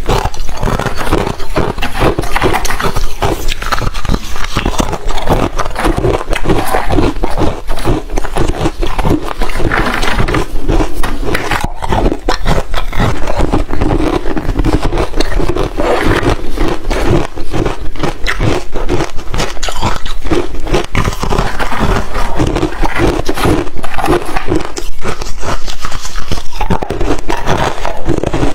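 Crunchy ice being bitten and chewed close to the microphone: a steady run of dense, sharp crackles and crunches.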